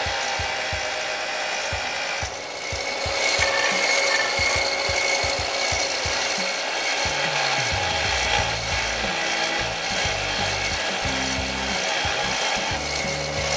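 Stationary disc sander grinding down the edge of a steel washer held on a bolt: a steady grinding hiss over the motor's hum. The grinding eases briefly about two seconds in, then resumes.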